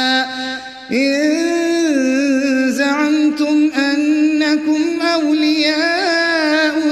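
One man reciting the Quran in melodic tajweed style: a long held note that ends about half a second in, a short breath, then a drawn-out vowel line with many ornamental turns in pitch.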